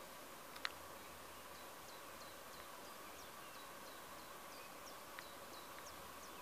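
Faint bird calling in the background: a run of short, high chirps, each falling in pitch, about three a second, starting a second and a half in. A single sharp click about half a second in is the loudest sound.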